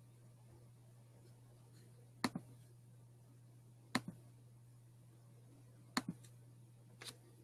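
Computer mouse clicks picked up by the microphone: four sharp clicks spaced one to two seconds apart, several with a softer second click just after, over a low steady hum.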